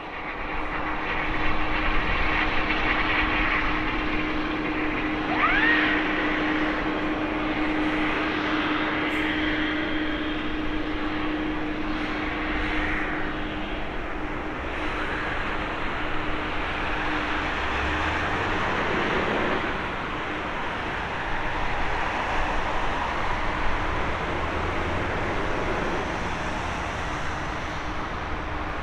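Airbus A330-300's Rolls-Royce Trent 700 jet engines on final approach and through landing: a steady jet roar with a steady hum underneath that fades about two-thirds of the way in as the aircraft touches down and rolls out.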